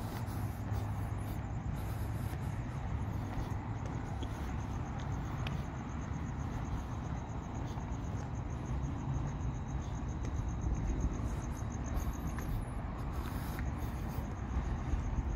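Crickets chirping in a high, even, rapid pulse, over a steady low hum of outdoor background noise.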